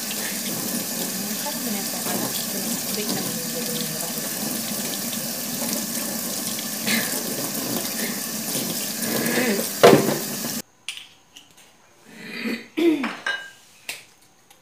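Kitchen tap running steadily into a sink while chopped breadfruit is rinsed in a bowl beneath it; the water is shut off abruptly about eleven seconds in. A few short sounds follow.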